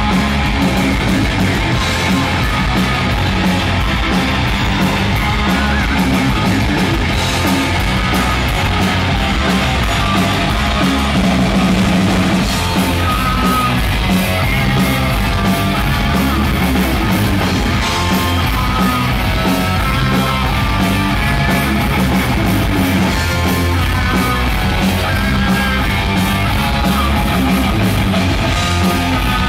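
A heavy metal band playing live: electric guitars, bass guitar and drums, loud and continuous.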